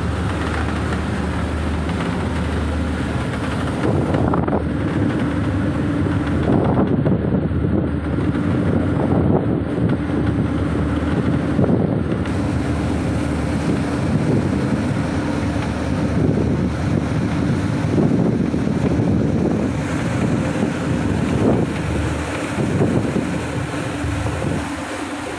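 Fishing boat under way at sea: the engine drones steadily beneath the rush of waves and spray along the hull, with wind buffeting the microphone.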